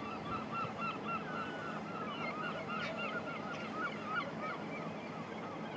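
Several birds calling at once: a quick run of short, repeated call notes, several a second and overlapping, busiest around the middle, over a steady background noise.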